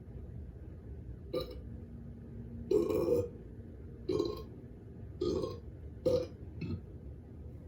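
A run of about six short burps, a second or so apart, with the loudest about three seconds in.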